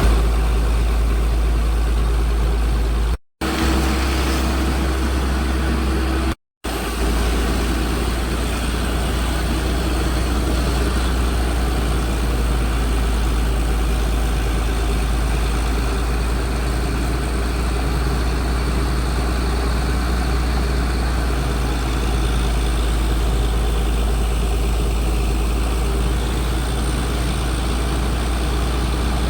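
Air compressor's engine running steadily with a deep hum, used for compressor washing to flush silt out of a jammed pump motor. The sound drops out briefly twice in the first seven seconds.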